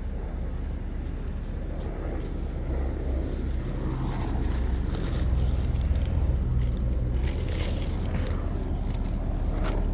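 Steady low outdoor rumble that swells in the middle, with scattered light crackles.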